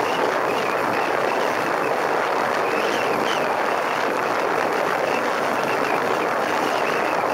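Steady rush of wind and road noise from a motorcycle ride at speed, heard through a helmet-mounted camera, with the motorcycle running underneath.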